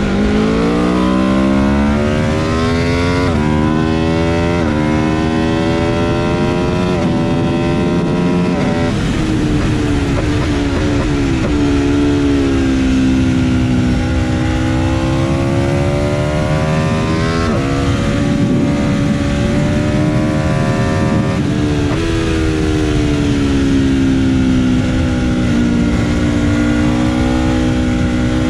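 Aprilia RSV4 RF's V4 engine at racing speed, revving up through the gears with several quick upshifts in the first nine seconds or so, each a sharp drop in pitch. The revs then fall away and climb again through the corners, with further shifts later, over a steady rush of wind noise.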